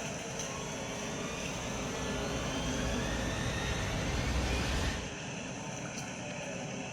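Steady engine noise from outdoor traffic, with a faint rising whine in the middle; the sound changes abruptly about five seconds in.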